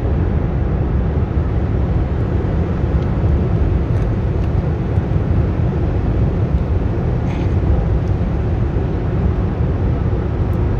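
Steady low rumbling background noise with no clear rhythm or pitch, at an even loud level throughout.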